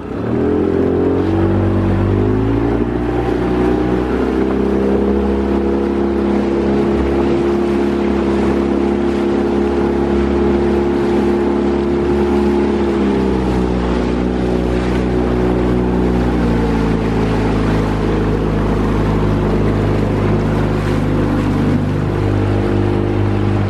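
Outboard motor driving a small aluminium-sided punt along, its note rising as it speeds up over the first couple of seconds, then running steadily and easing off a little about halfway through. Water rushes along the hull beneath it.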